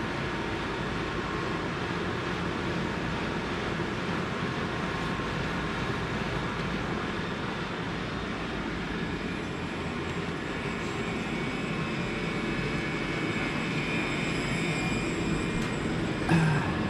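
Electrovert Electra 500F wave solder machine running: a steady mechanical whir with a few faint steady tones over it.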